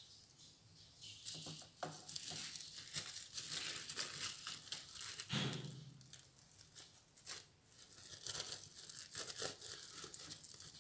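Plastic cling film crinkling and crackling under hands in faint, irregular bursts, with a soft knock about five seconds in.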